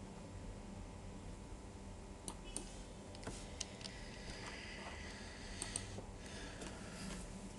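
A few short computer mouse and keyboard clicks from about two seconds in, some in quick pairs, over a faint steady hum.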